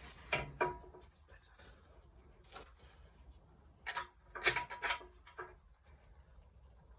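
Metal parts and hand tools clinking and knocking in short clusters while a Mini subframe's suspension parts are fitted, the louder hits leaving a brief metallic ring. The biggest clusters come about half a second in and again around four to five seconds in.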